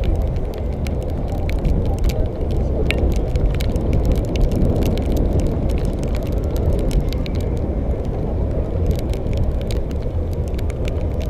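Steady low rumble of wind and road noise from riding an electric scooter, with many sharp clicks and crackles scattered through it.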